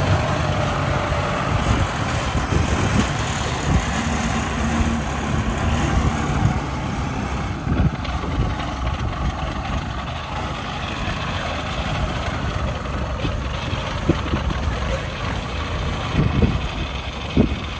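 Engine of a small crawler-tracked rice-field carrier running steadily as the machine drives over harvested stubble, with a couple of knocks near the end.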